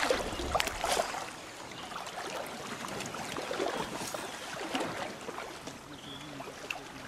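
Fast river current flowing and lapping, with a few splashes in the water in the first second or so.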